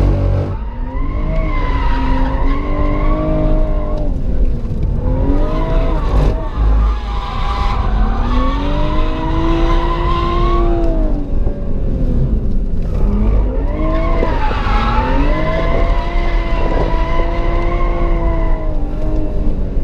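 BMW M135i's turbocharged straight-six heard from inside the cabin, its revs swelling up and falling back several times as the car drifts, with the Michelin Pilot Sport Cup 2 tyres squealing and skidding.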